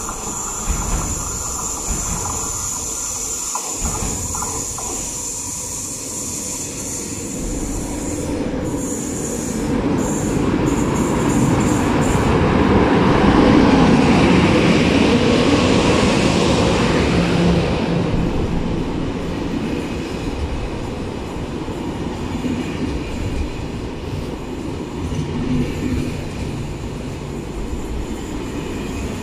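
A double-deck TGV high-speed train runs in along the platform. A steady high squeal is heard for the first ten seconds or so. The rumble grows loudest about halfway, as the power car passes, then settles into the steady rolling of the double-deck coaches going by.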